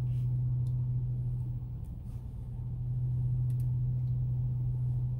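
Steady low hum of a car heard from inside the cabin, with a few faint clicks.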